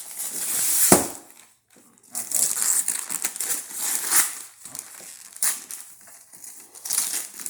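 Packaging crinkling and rustling in repeated bursts as a package is handled and torn open, with one sharp knock about a second in.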